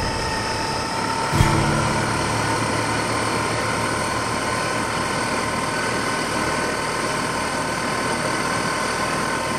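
Outboard motor of a Zodiac inflatable running steadily under way, with a constant whine over the rush of water and wind. A single knock comes about a second and a half in.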